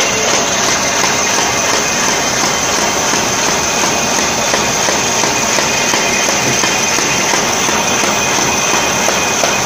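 Automatic envelope window film patching machine running: a steady mechanical clatter made of many fast, fine ticks.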